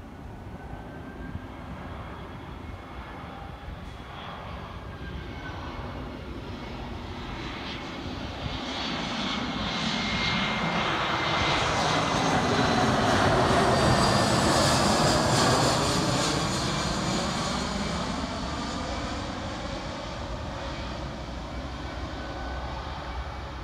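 Airbus A320-214 airliner's CFM56 turbofan engines passing low overhead on final approach. The jet noise builds to a peak about fourteen seconds in, its whining tones gliding down in pitch as it goes by, then fades as it heads away.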